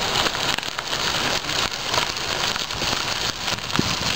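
Bicycle tyres rolling over a gravel path: a steady crunching crackle of grit under the wheels.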